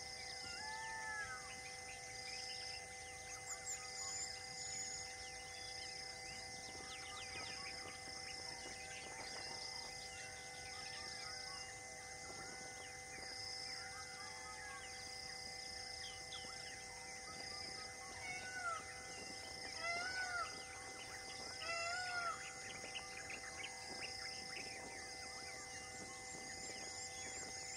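Outdoor forest ambience: birds calling in short rising-and-falling notes, clustering loudest about two-thirds of the way through, over a steady background hum and a faint high note repeating about once a second.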